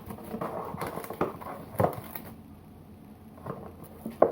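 A takeaway food box being opened and handled by hand: scattered crinkles and taps, quieter in the middle, with a sharper tap just before the end.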